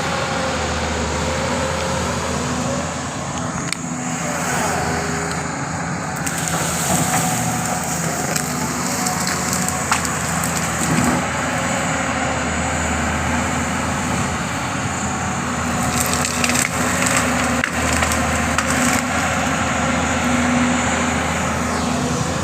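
Doosan 225 hydraulic excavator engine running steadily while wood cracks and splinters, as the machine breaks and crushes mango tree branches.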